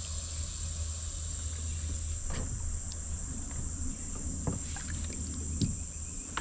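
Steady high-pitched chorus of insects, with a few small splashes and drips of water a little after two seconds in, around four and a half seconds and near the end as hands move in the river beside a kayak.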